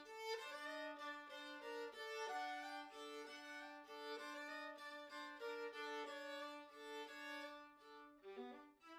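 Music played on bowed strings: a long held low note under a repeating figure of short higher notes, with a brief break near the end before new notes begin.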